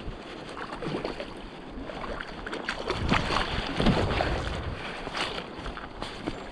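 Rushing mountain stream, a steady wash of water noise, with several short sharp noises and a louder stretch in the middle, as a trout is played and landed.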